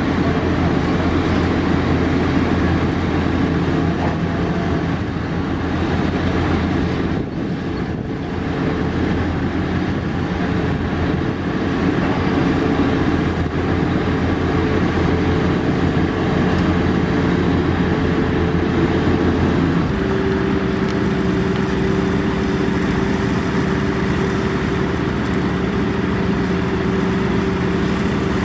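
Heavy diesel construction machinery running steadily with a low engine drone. About twenty seconds in, the engine note switches abruptly to a different steady pitch.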